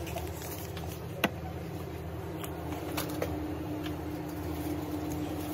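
Steady low machine hum of a shop interior, with one sharp click about a second in and a few faint ticks. A faint steady tone joins about halfway through.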